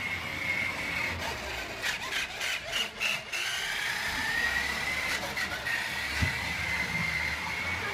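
Electric motor of a remote-controlled toy dump truck whining steadily as it drives across a hardwood floor, its pitch sagging and climbing back a little past the middle, with a few clicks and rattles about two to three seconds in.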